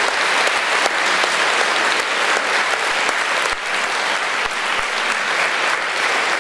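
Audience applauding, dense, steady clapping.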